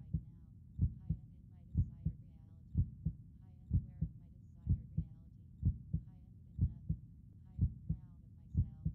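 Heartbeat recording: a steady lub-dub, a strong low thump followed closely by a softer one, repeating about once a second.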